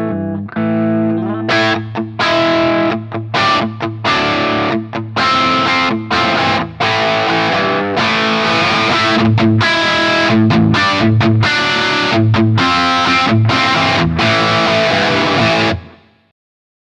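High-gain distorted electric guitar played through a Peavey 6505 1992 Original tube amp: a staccato riff with short stops, then denser low palm-muted chugging, ending abruptly near the end.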